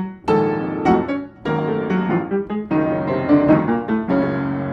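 Solo piano music: a run of struck notes and chords, ending about four seconds in on a chord that is held and rings on, slowly fading.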